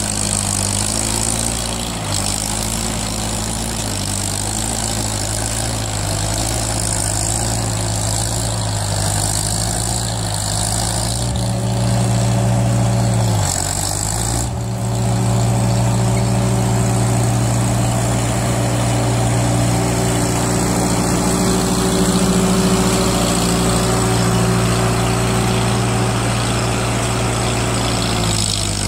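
1947 Farmall H's four-cylinder engine running steadily under load as the tractor works through deep mud carrying a round hay bale on its front-end loader. Its pitch sags briefly about halfway through, then recovers.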